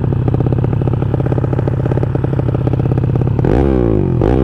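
Honda Supra motorcycle's single-cylinder four-stroke engine, bored out to 200cc, idling with a quick, even pulse through an aftermarket CJDW exhaust. Near the end it is revved twice in quick succession, rising and falling back each time.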